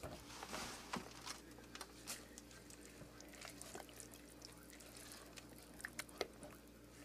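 Faint wet stirring and scraping as a silicone spatula works shredded soap pieces into thick cold-process soap batter in a plastic bucket, with scattered small clicks over a steady low hum.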